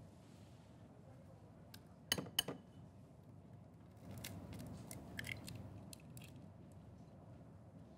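An egg tapped sharply twice against the rim of a glass bowl to crack it, a little over two seconds in. Then soft crackling of the eggshell being pried apart by hand as the yolk is separated from the white.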